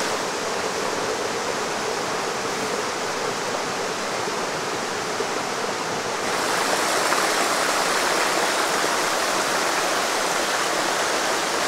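Water rushing steadily down the Bua Tong Sticky Waterfall's limestone cascades, growing a little louder and brighter about halfway through.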